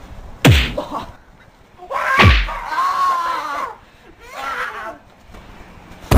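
Fighting-game style hit sound effects: one sharp smack about half a second in and another about two seconds in. The second is followed by a drawn-out yell, and a shorter cry comes near the five-second mark.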